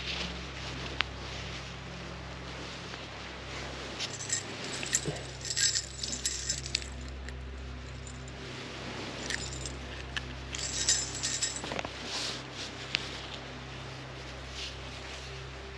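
Small metal gear jingling and clinking in the hands, in two spells a few seconds apart, over a steady low hum.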